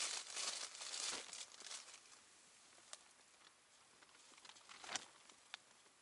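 Close rustling and crinkling for about the first two seconds, then a few faint, scattered clicks.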